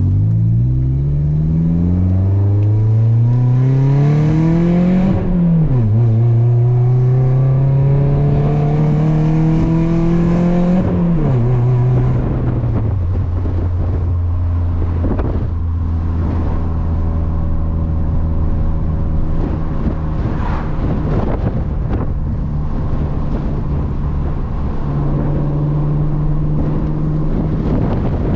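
Toyota Corolla's four-cylinder engine pulling through the gears of a manual gearbox: the revs climb, fall at an upshift about five seconds in, climb again more slowly, fall at a second upshift about eleven seconds in, then hold steady while cruising.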